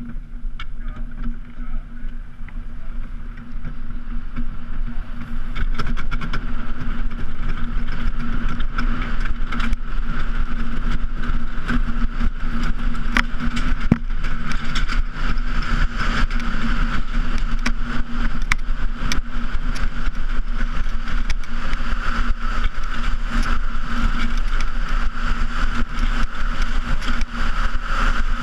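A bobsleigh running down an ice track: a steady noise of the runners on the ice, with a constant hum, that builds over the first few seconds as the sled gathers speed, and many sharp knocks and rattles from the sled over the ice.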